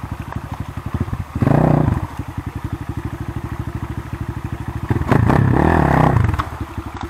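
Enduro dirt bike's single-cylinder engine chugging at low revs as the bike is worked through deep mud. It is revved up in two bursts, briefly about a second and a half in and for longer around five seconds in.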